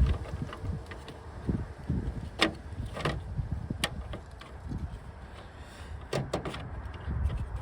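Irregular clicks, taps and light knocks of plastic and metal parts being handled on a car's interior door panel, with a heavier thump at the start.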